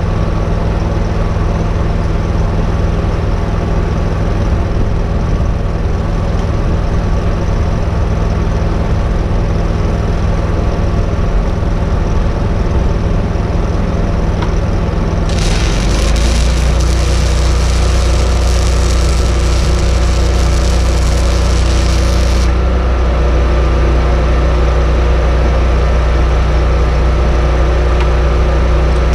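Engine-driven welding machine running steadily, its engine speeding up about halfway through. A loud hiss starts as the engine speeds up and stops about seven seconds later.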